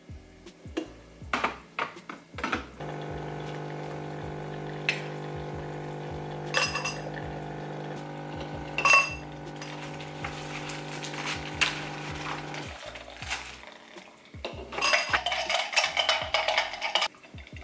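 A few glassy clinks and knocks, then a capsule espresso machine's pump hums steadily for about ten seconds while it brews coffee into a glass, cutting off abruptly. Near the end, ice cubes rattle and clink in the glass.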